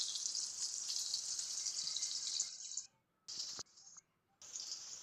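Mango pieces sizzling as they fry in hot mustard oil. The sound cuts out completely twice, for a moment each, about three and four seconds in.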